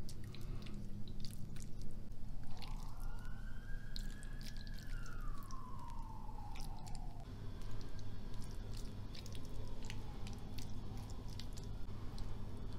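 A metal spoon and fork clicking and scraping against a frying pan and a ceramic plate while cooked greens are served out, with soft squishing of the food. A siren wails in the background about two seconds in, rising and then falling over some five seconds, with a fainter wail after it.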